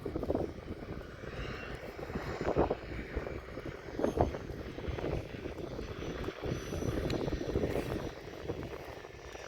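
A light aircraft's engine droning as it comes in to land in a crosswind, heard through an uneven, gusty rumble.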